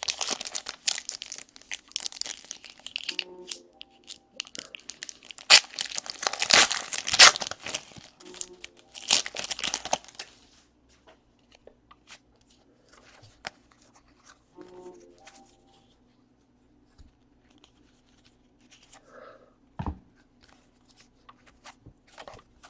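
Trading card pack wrapper being torn open and crinkled in the hands, a run of rustling and tearing through the first half, then only faint handling clicks of cards.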